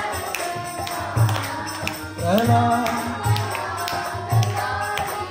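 Kirtan music: harmonium tones held over a steady two-headed barrel drum (mridanga) beat, with clapping. A voice sings a rising phrase about halfway through.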